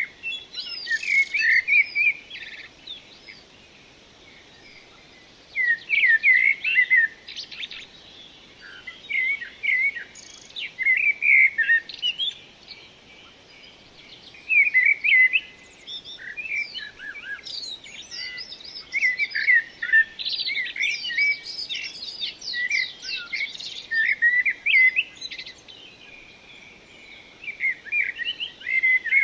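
Songbirds chirping and singing in short bursts of quick, high notes, with brief pauses between the phrases.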